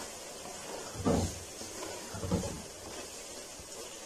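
Wooden spatula stirring noodles in a metal pot, with two soft scrapes and knocks against the pot, about one second and two seconds in, over a faint steady hiss.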